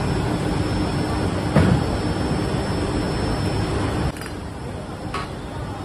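Steady machinery noise in a rotomolding workshop, with a low hum and a single metal clank about a second and a half in. The noise drops to a lower level about four seconds in.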